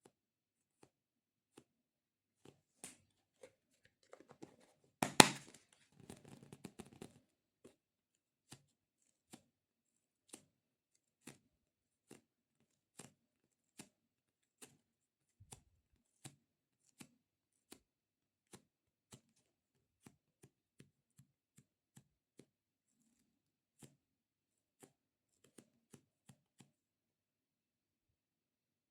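Fingertips tapping a sticky squishy stress-relief toy: light separate taps, about one a second, with a louder sticky crackle and peel about five seconds in.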